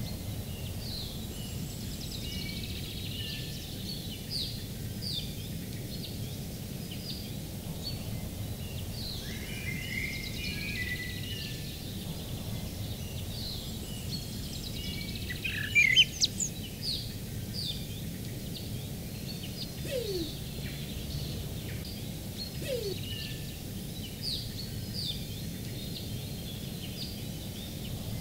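Small birds chirping in native bush: many short, high, falling notes scattered throughout over a steady low rumble of background noise, with a brief louder burst of chirps about halfway through. About two-thirds of the way in come two soft, low, falling coos, the call of a New Zealand wood pigeon (kererū).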